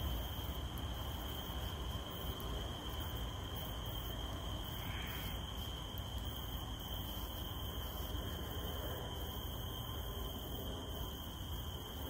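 Cicadas droning in one steady, high-pitched tone over a steady hiss of falling rain.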